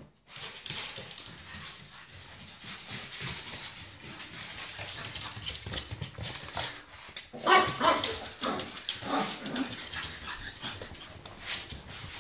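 Pug puppy barking and yipping in alarm at gloves, in a quick run of short, high barks about seven to ten seconds in. Scuffling and rubbing noise runs under them.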